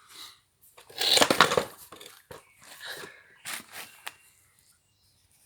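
Handling noise as a Parker 45cc chainsaw is moved and turned over by hand: a string of scrapes and knocks, loudest about a second in, then smaller clicks and knocks. The saw's engine is not running.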